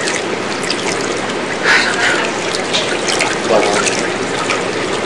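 Steady trickling hiss of running water, with a faint voice briefly about three and a half seconds in.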